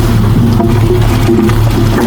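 Heavy diesel engine of earthmoving equipment running steadily, a constant low drone with a wavering mid-pitched tone over it.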